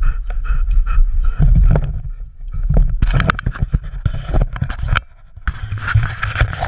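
Knocking, rubbing and thumping from a GoPro harness-mounted on a dog's back as the dog runs down a staircase, with its footfalls coming through as a quick, uneven run of knocks. It drops off briefly about five seconds in, then the bumping starts again.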